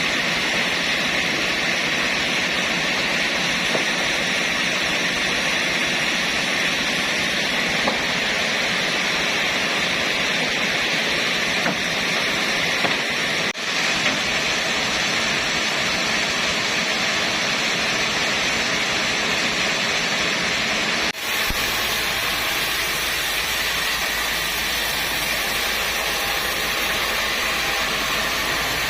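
Sawmill machinery, a saw running steadily with an even rushing noise. About a second after the twenty-second mark the sound changes abruptly and carries on in a deeper, fuller form.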